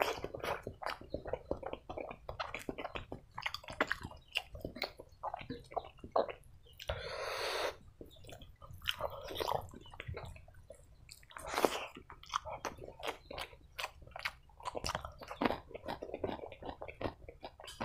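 Close-up chewing of a mouthful of rice and curry: wet lip smacks and clicks. A short rushing noise comes about seven seconds in.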